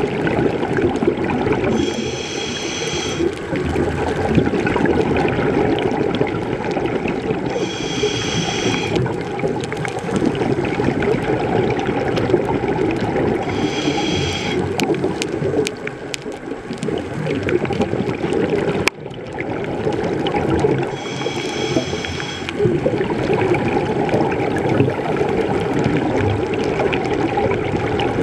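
Scuba breathing heard underwater: a short whistling hiss through the regulator about every six seconds, with a steady bubbling rumble of exhaled air and water noise in between.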